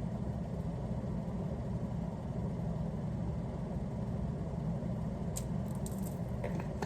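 A steady low hum, with a few faint light clicks near the end.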